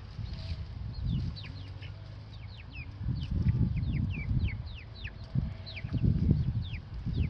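Chickens peeping over and over in short, high calls that slide downward, several a second. Under them is a low, gusty rumble of wind on the microphone.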